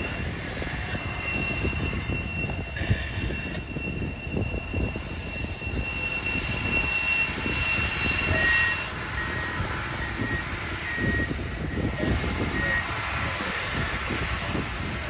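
A train rumbling past, with a steady high whine over roughly the first half, then a short beep repeating about once a second for several seconds.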